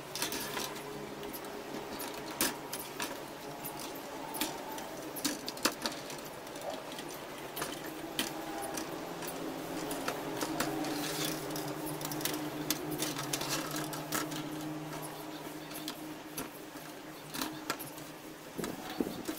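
Thin steel wire mesh of a TV antenna's grid reflector clicking and tapping against a wooden tabletop as it is bent and pressed flat by hand, in irregular light clicks. A steady low hum runs underneath.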